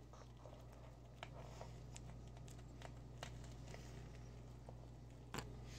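Near silence: a steady low electrical hum with scattered faint clicks and taps, and one sharper click about five seconds in.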